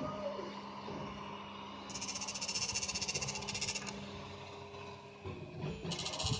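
Prusa i3 MK2 3D printer running, with a steady motor hum and a high-pitched noise from its Y-axis that comes in for about two seconds, starting about two seconds in and again near the end: an unwanted noise on a new printer.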